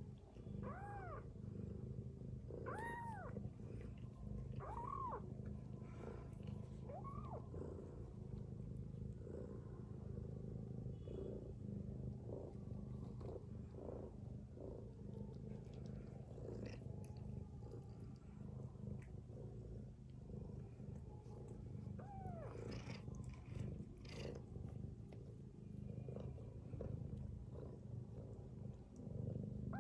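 Mother cat's steady low rumble as she rests with her kittens, snoring or purring. Kittens give short high mews that rise and fall, several in the first few seconds, again about two-thirds of the way through and at the very end.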